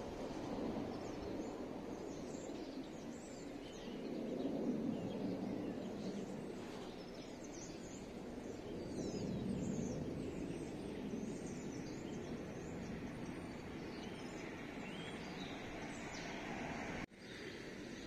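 Outdoor ambience: small birds chirping and twittering over a low rushing background noise that swells and fades a couple of times. The sound drops out briefly near the end.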